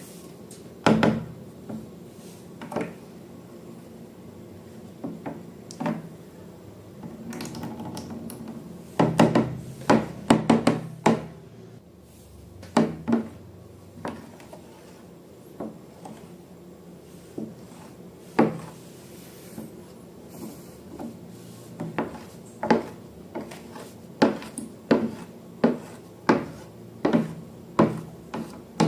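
Repeated sharp knocks and scraping of a hard object on a hard surface, typical of slime being mixed or worked with tools: scattered knocks, a quick cluster about a third of the way in, then a fairly even run of knocks about a second apart near the end.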